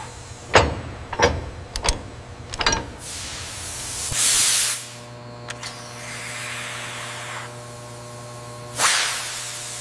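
Industrial machinery: several sharp knocks in the first three seconds, then two short bursts of hissing air about four seconds apart, over a steady hum.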